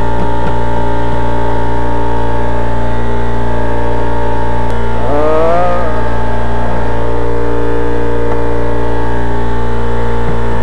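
Loud steady hum made of several constant tones, heaviest in the low range. About five seconds in comes a short wavering pitched sound.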